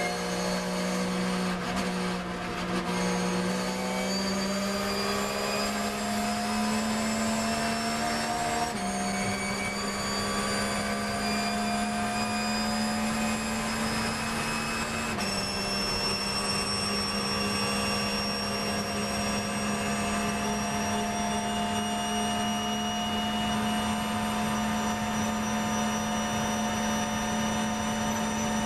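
Porsche 911 GT3 R racing car's naturally aspirated flat-six under full-throttle acceleration, heard from inside the cockpit. The pitch climbs steadily and drops sharply at two upshifts, about a third and halfway through. In the top gear the climb is slow as speed nears 275 km/h.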